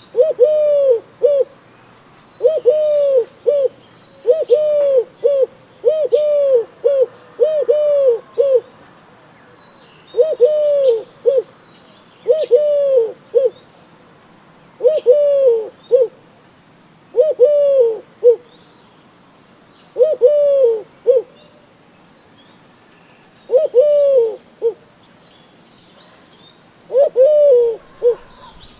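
Eurasian collared dove cooing: repeated phrases of two or three arched coos, one phrase every couple of seconds.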